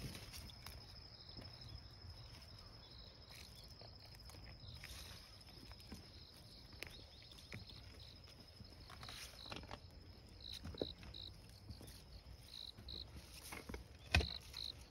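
Faint, steady high trilling of insects in the grass, with a second insect chirping in short pairs from about ten seconds in. Light scattered footsteps and rustles on the path, with one sharp knock near the end.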